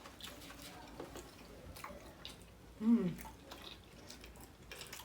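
Close-up chewing of sushi, with small wet mouth clicks and squishes. A brief hum-like vocal sound comes about three seconds in.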